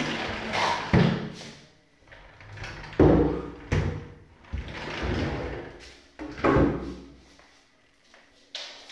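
Cabinet drawers sliding open and shut on their runners, with several sharp knocks as they close.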